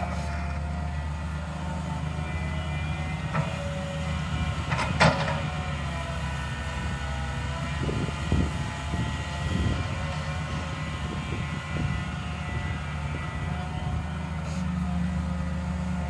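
Daewoo 130W-V wheeled excavator's diesel engine running steadily while the machine swings, digs and loads soil, with a sharp clank about five seconds in and a series of knocks around the middle.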